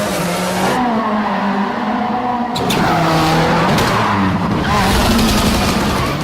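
Ken Block's Ford Fiesta rally car, a turbocharged four-cylinder, driven hard: the engine pitch climbs and drops over and over through throttle lifts and gear changes. A hiss of sliding tyres rises and falls with it, and there are two sharp cracks about two and a half and four seconds in.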